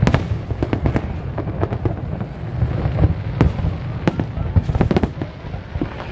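Aerial fireworks display going off: a steady run of sharp bangs, irregular but about two a second, over a continuous low rumble.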